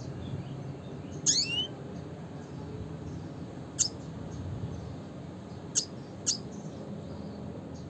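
Red siskin calling: a quick run of high notes sweeping downward about a second in, then three single sharp, down-slurred call notes spaced one to two seconds apart, over a steady low hum.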